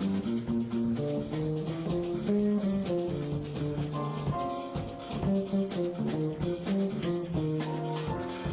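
Live jazz band playing: a melodic line of quick notes, likely guitar, over double bass and drum kit with cymbals keeping a steady beat.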